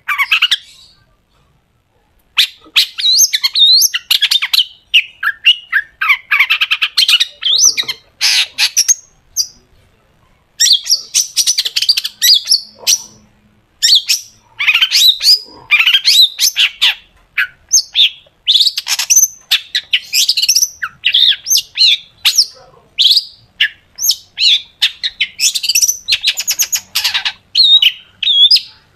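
Long-tailed shrike (cendet) singing a loud, rapid song of sharp, harsh chattering notes and quick whistled sweeps, the 'tembakan' bursts prized by Indonesian bird keepers, in long runs broken by brief pauses.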